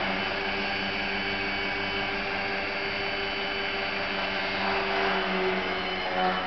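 Electric motor and propeller of a small indoor foam RC aerobatic plane holding a prop-hang hover, a steady whirring hum. It swells a little near the end as the plane pulls out of the hover and flies off.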